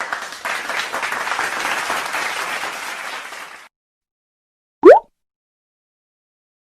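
A crowd applauding for about three and a half seconds, cut off abruptly. A second later comes a short, loud rising whistle-like tone, a sound effect lasting a fraction of a second.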